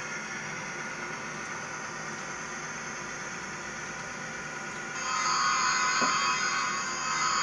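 Model train running on the layout: a steady whir and hiss that gets louder and brighter about five seconds in.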